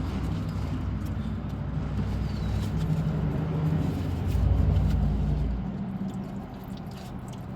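Low rumble of a vehicle's engine, swelling about four and a half seconds in and then fading out.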